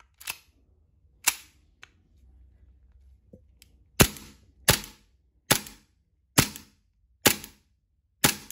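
Gas blowback airsoft Beretta M9 pistol firing six shots, a bit under a second apart, each a sharp crack. Two lighter clicks come near the start before the shooting begins.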